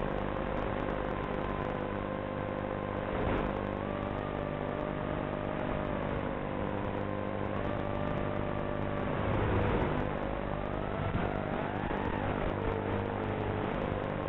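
Eachine Wizard X220 quadcopter's brushless motors whining in flight, the pitch rising and falling with the throttle, swooping down and then sharply up about ten seconds in.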